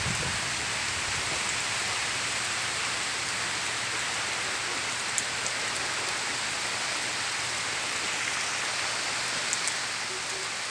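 Steady rain falling, an even hiss, with a couple of sharper drop taps, one midway and one near the end.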